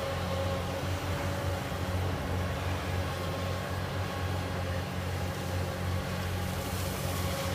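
Komatsu PC240LC-10 super long front excavator's diesel engine running steadily while the long-reach arm works the bucket in and out of the water: a constant low drone with a steady higher tone above it.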